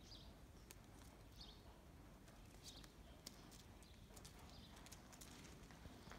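Near silence with faint, scattered taps and scuffs of a cat pouncing and batting at a rope wand toy on dirt ground. Faint high chirps come in now and then.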